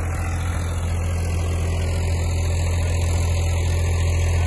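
Powertrac Euro 50 tractor's three-cylinder diesel engine running steadily under load while pulling disc harrows through tilled soil, a constant low hum that grows slightly louder toward the end.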